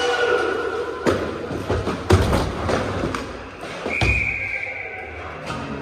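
Inline hockey play in a hall: sharp clacks of sticks and puck on the plastic sport-court floor and boards, with skate noise and reverberation, the loudest hit about two seconds in. A long high whistle-like tone comes in about four seconds in and holds for over a second.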